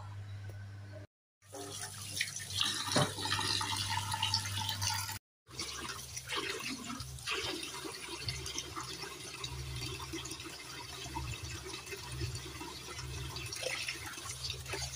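Tap water running and splashing into a glass bowl in a stainless steel sink as raw chicken pieces are rubbed and rinsed by hand. The sound drops out briefly twice in the first few seconds.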